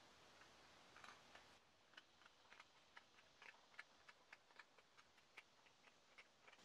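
Faint, irregular clicks and scrapes of a small chisel paring thin shavings off a wooden knife handle to cut the seat for a brass ferrule, a few strokes a second starting about a second in.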